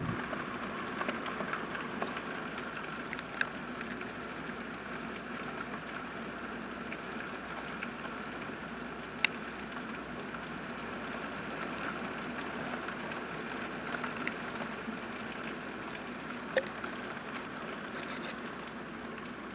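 Steady rain falling during a thunderstorm, with a few sharp ticks scattered through it.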